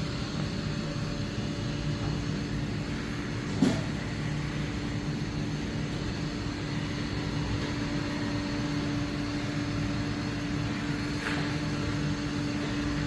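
Roomba robot vacuum running: a steady motor whir and hum as it cleans the floor, with a sharp knock a few seconds in and a fainter click later.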